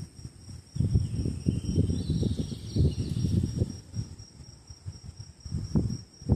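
Crickets trilling steadily at two high pitches, under an irregular, gusty low rumble that comes and goes every second or so.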